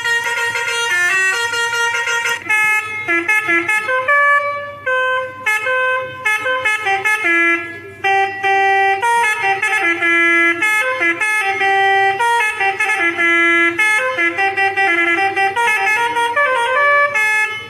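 Electronic telolet basuri bus horn, an Arduino with a DFPlayer sound module, playing a tune note by note: a string of horn tones that step up and down in pitch, some short and quick, others held.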